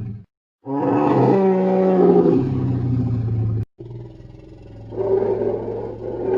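Custom dinosaur roar sound effect built from mammoth calls made deeper and louder. A long, pitched roar starts just after a brief silence and stops abruptly. A quieter rumble follows and swells into a second roar near the end.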